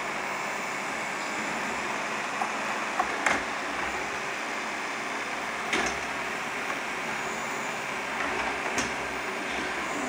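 Shark robot vacuum running with a steady whir, with a few sharp clicks or knocks a few seconds in and again near the end.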